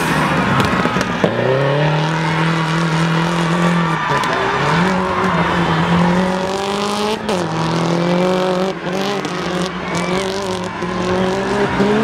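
Subaru Impreza rally car's turbocharged flat-four engine held at high revs as the car slides through a loose dirt corner. The engine note is steady, dipping and climbing again a few times, at about one, four and seven seconds in, as the driver shifts and lifts.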